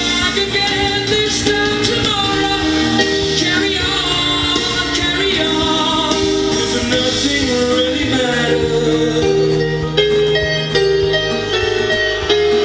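A song with a singing voice over instruments, played from a vinyl record on a turntable.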